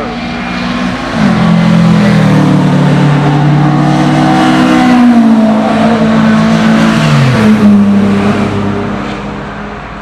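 Historic racing cars passing at speed, engines loud and rising to a peak in the middle before fading near the end. The engine pitch steps down sharply about a second in and again around seven seconds in.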